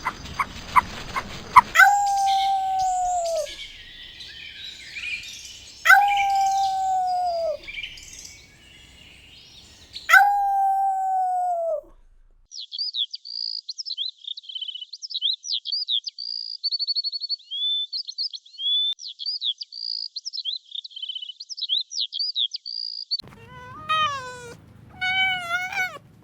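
Animal calls one after another: three long, drawn-out howl-like calls, each held level and then dropping off at the end. These are followed by a long run of rapid, high bird chirping, and near the end a few short meow-like calls.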